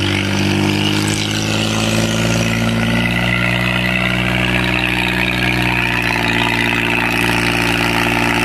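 Mahindra 265 DI tractor's three-cylinder diesel engine running steadily and labouring hard under heavy load as it pulls a disc harrow through dry soil.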